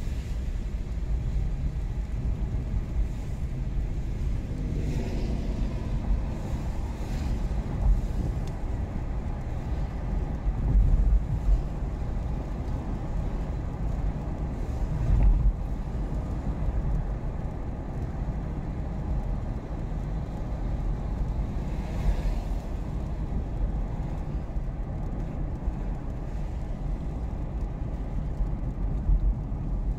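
Road and engine noise from inside a moving car's cabin: a steady low rumble with a few louder bumps.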